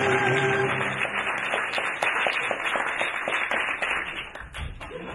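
Rhythmic hand clapping, about three claps a second, over a steady wash of noise; music fades out about a second in.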